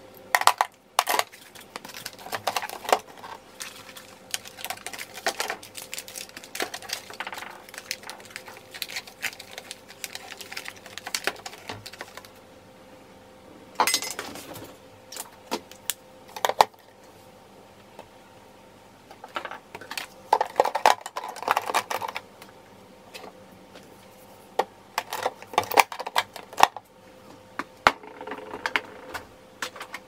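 Skincare bottles and jars being handled and set into a small plastic beauty fridge and its door rack: scattered clinks, taps and knocks, with a short rustle about halfway through. A faint steady hum runs underneath.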